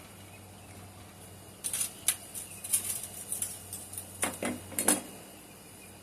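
Irregular metallic clinks and scrapes of tools against a crucible while molten silver is being checked before casting, with a few louder knocks near the end.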